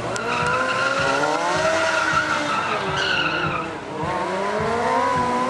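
Sport motorcycle engine revving up and down during stunt riding, with a steady high tyre squeal through the first three and a half seconds or so. The revs dip near the four-second mark, then climb again.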